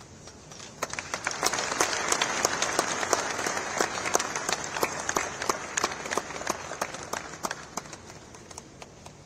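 A group of people applauding, starting about a second in and dying away near the end.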